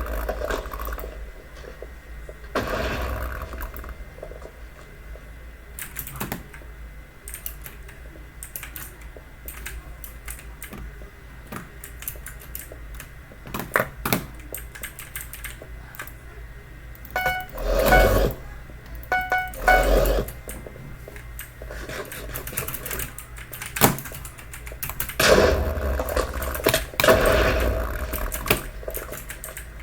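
Clicky Logitech mechanical keyboard with blue-style switches being typed on in bursts of fast keystrokes, separated by sparser single key presses.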